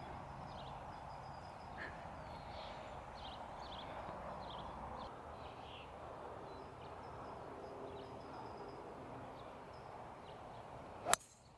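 Faint outdoor ambience with scattered bird chirps, then near the end a single sharp crack as a golf club head strikes a ball off the tee on a tee shot.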